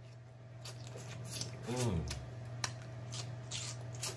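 Close-up mouth sounds of a person eating crab leg meat in butter sauce: wet smacking and sucking clicks, with a short hummed "mmm" about two seconds in. A steady low electrical hum runs underneath.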